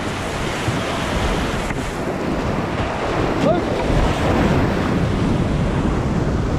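Whitewater rapid rushing as a kayak runs down a drop, with water splashing over the boat and the camera. It gets a little louder about halfway through as the boat drops into the foaming water.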